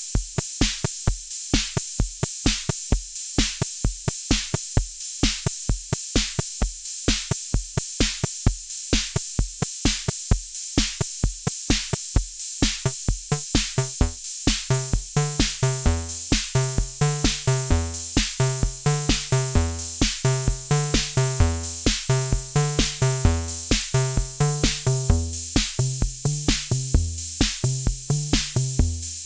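A drum-machine beat with a steady kick and hi-hats. About halfway through, a sequenced line from the Erica Synths Bassline analog bass synthesizer comes in, with short notes stepping up and down in pitch.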